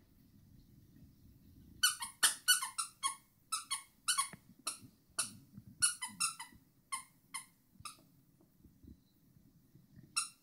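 Squeaky plush dog toy squeaking over and over as a puppy chews it. The short, high squeaks come in quick irregular runs starting about two seconds in and thin out near the end.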